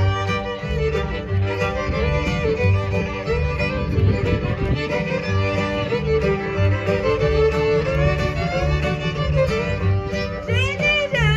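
Old-time string band instrumental break: two fiddles playing the melody together over upright bass and acoustic guitar keeping a steady two-step beat. Near the end a woman's singing voice comes back in.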